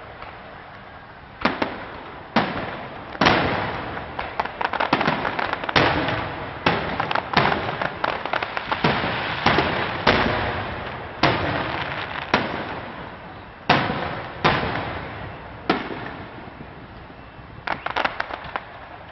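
Fireworks display: aerial shells bursting one after another in more than a dozen sharp booms, with dense crackling in between. The bursts come thickest in the middle and thin out near the end.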